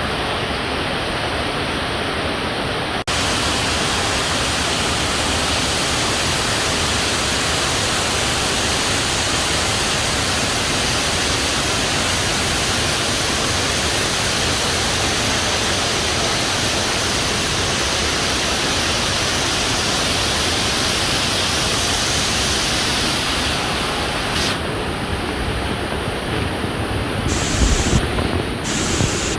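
Steady rushing roar of Fukuroda Falls, a 120-metre waterfall, broken briefly by a cut about three seconds in, with a few low bumps near the end.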